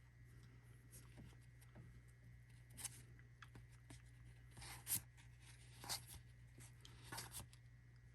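Quiet handling of cardboard trading cards: faint sliding and rubbing with a few soft swishes and taps, the clearest about three, five and six seconds in, over a steady low hum.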